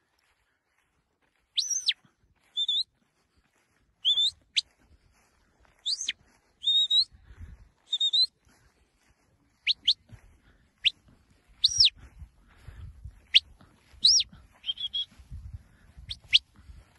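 Shepherd's whistle commands to a working sheepdog: a series of short, sharp whistled notes, some arching up and down and some quick upward sweeps, starting about a second and a half in. Bursts of low rumble come and go in the second half.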